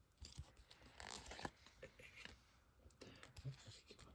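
Faint papery scrapes and rustles of a stack of Topps baseball cards being slid apart by hand, one card after another, in a few brief strokes.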